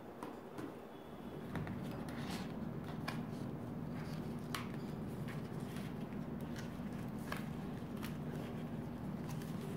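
Hands handling a smartphone's cardboard packaging and its card insert tray: scattered light clicks and rustles of card. Underneath is a steady low hum that comes in about a second and a half in.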